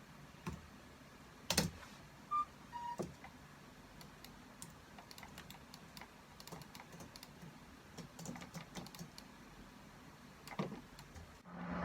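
Foley sound effects for an animation: scattered light clicks and taps, with two short beeps in a row between two and three seconds in.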